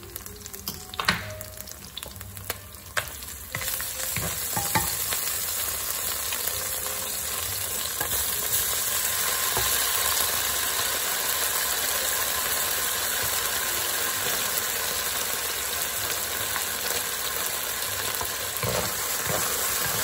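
Garlic and ginger frying gently in oil in a wok with a few clicks. About three and a half seconds in, beef strips go into the hot oil and a loud, steady sizzle takes over. Near the end a wooden spatula stirs the beef, knocking in the pan.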